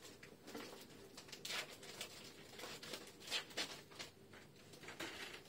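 Faint scattered rustles and soft clicks of dressing supplies being handled by gloved hands.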